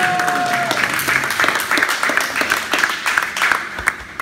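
A room full of people applauding, many hands clapping at once. The clapping thins out near the end.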